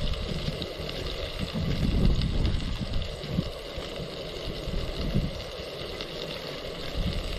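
Wind buffeting the microphone in uneven gusts, a low rumble over a steady hiss.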